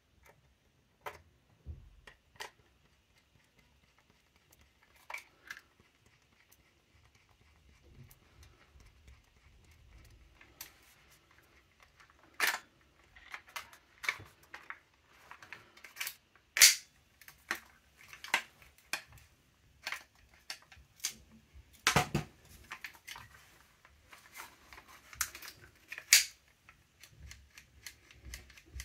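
Scattered clicks and knocks of the A&Y AY-3M airsoft rifle's body and parts being handled and worked with a screwdriver during reassembly. Sparse at first, then busier from about halfway, with a few sharp clacks standing out.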